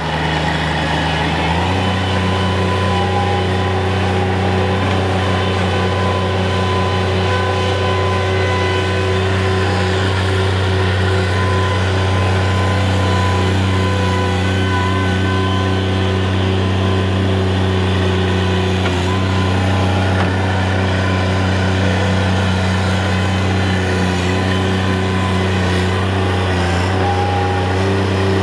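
Engine of a stand-on mini track loader running steadily at working speed while it digs soil with its bucket. The engine note shifts just under two seconds in, then holds even.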